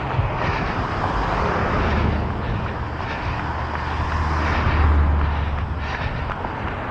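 Road traffic going by, with one vehicle's low engine rumble swelling to its loudest about five seconds in and then fading as it passes.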